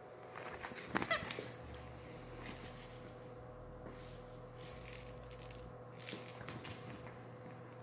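Small dogs tussling over a plush toy on a couch: a short flurry of scuffling and clicks about a second in, then quiet with a steady hum in the room.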